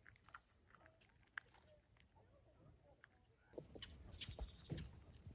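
Quiet lakeside ambience with faint, scattered bird chirps. About three and a half seconds in, the closer sounds of two ducks feeding at the water's surface come in: soft clicks and dabbling.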